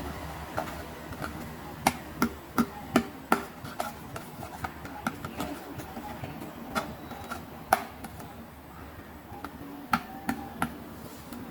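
Sharp, irregular clicks and taps of small plastic toy pieces being handled and set down. There is a quick run of about five a couple of seconds in, with more scattered ones after.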